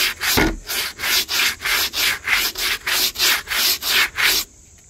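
Brush scrubbing wet, soapy wooden deck boards back and forth in quick, even strokes, about three a second, that stop abruptly about four and a half seconds in. The brush is working hot soapy water and Murphy Oil Soap into sticky tree sap on the planks.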